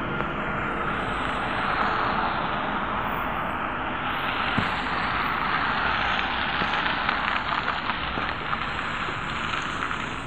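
Steady rushing vehicle noise from a Trolza-5275.05 Optima trolleybus close by, swelling in the middle and easing off near the end.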